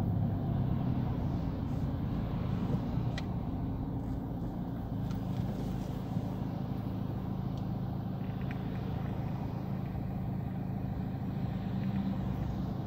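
A car's engine and road noise heard from inside the cabin as the car slows and stops, then the engine idling steadily.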